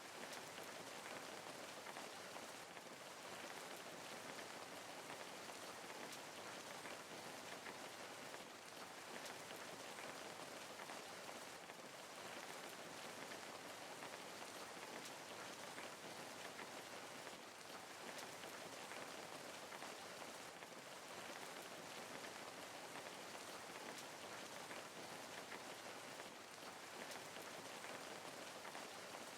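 Steady rain falling, an even hiss of many drops pattering on a surface, with no thunder or other events.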